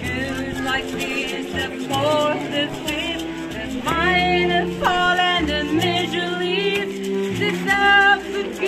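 Live band music: a voice singing over a baritone saxophone, double bass and drums, with long held low notes under a wavering sung melody.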